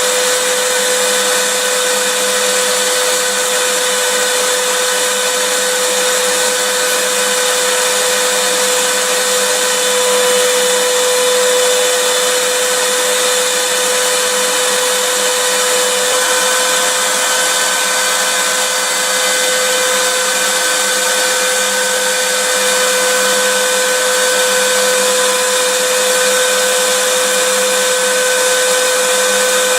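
Vacuum cleaner running steadily: an even rushing hiss with a constant whine over it.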